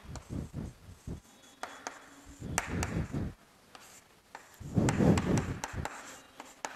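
Chalk writing on a chalkboard: irregular scratchy strokes with light taps as a word is written out.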